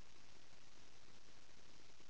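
Steady, faint hiss like static, even and unbroken, with no distinct sounds in it.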